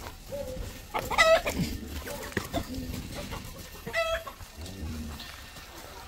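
Chickens clucking, with two loud calls standing out, one about a second in and one about four seconds in, and softer short clucks between them.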